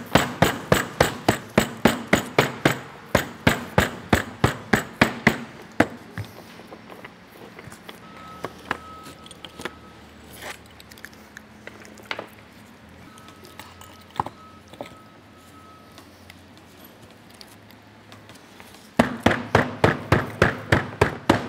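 Grout float tapped quickly and repeatedly on paper-faced glass mosaic tile sheets to seat them in the thinset. The sharp taps come about four a second for the first six seconds. A quieter middle stretch holds only a few scattered knocks, and another quick run of taps starts near the end.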